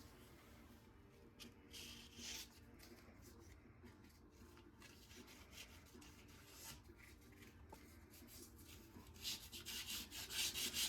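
Faint rubbing strokes as excess glue is cleaned off the oak shelf's joints: a few scattered strokes, then a quick run of strokes near the end.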